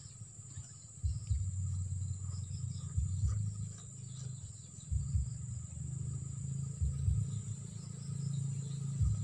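Insects droning in a steady high buzz over a low rumble, with dull thumps about every two seconds.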